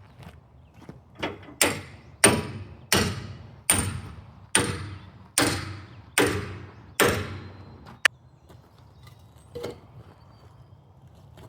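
A run of about eight loud bangs, one roughly every three quarters of a second, each with a short ringing tail, then a single sharp click.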